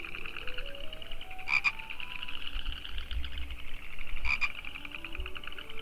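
A chorus of two kinds of frogs calling. One is a steady, fast-pulsed high trill. The other gives a louder short double call twice, with a slower series of lower notes stepping up in pitch beneath them.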